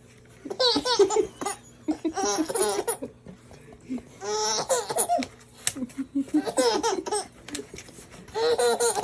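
A baby laughing hard in several bouts, with short pauses between them.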